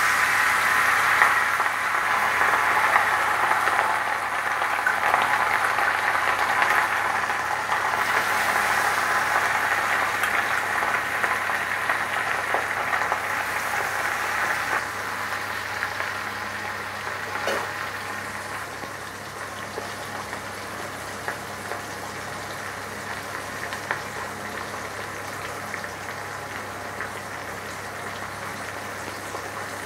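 Masala-coated sardines deep-frying in a kadai of hot oil: a dense sizzle, loudest at first as the fish go in, then gradually quieter as the frying settles. One light tap about halfway through.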